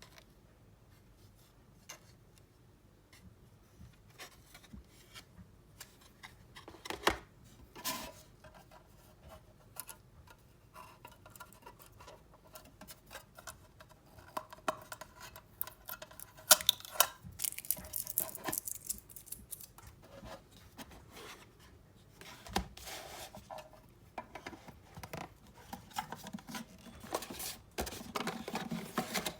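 Hands handling the box and plastic packaging of a 1:43 scale diecast model car: irregular clicks, scrapes and rustling, sparse at first and busier from about halfway.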